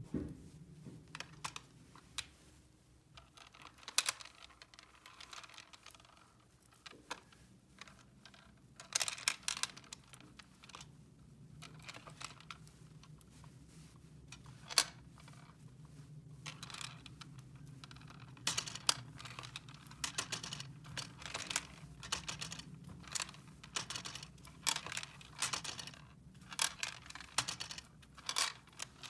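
Small plastic toy pieces being handled: irregular clicks and taps, at times in quick clusters, with some crinkling of packaging, over a faint low hum.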